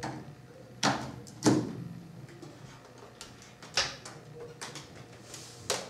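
Handling noise as a plug-in power adapter is pushed into a power strip and its cord pulled out across a table: four sharp clicks and knocks with lighter ticks between, the loudest about a second and a half in.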